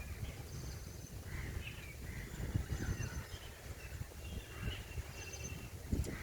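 Several birds chirping and calling in short, scattered phrases over a low, uneven rumble.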